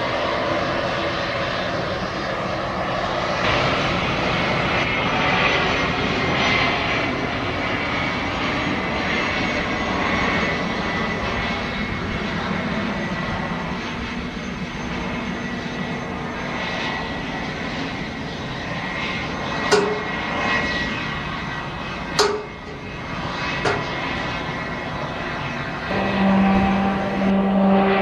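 Business jets' turbofan engines running on the runway, a steady jet roar, with a few sharp clicks past the middle. About two seconds before the end, a Piaggio P.180 Avanti's twin pusher turboprops take over with a steady propeller hum as it powers up for take-off.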